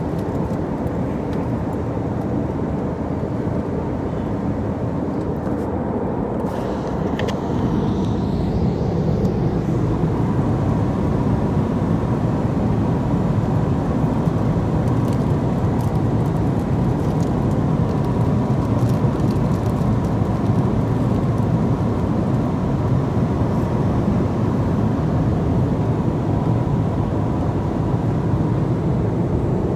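Steady noise of a jet airliner in flight heard from inside the passenger cabin: engine and airflow noise concentrated in the low range, with a faint steady high tone. It grows a little louder about seven seconds in and then holds.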